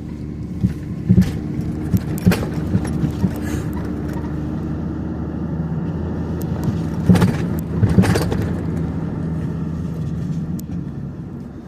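Vehicle cabin while driving: the engine runs steadily and grows louder in the first second as the vehicle gets moving. Sharp knocks and rattles come through it, loudest at about seven and eight seconds in.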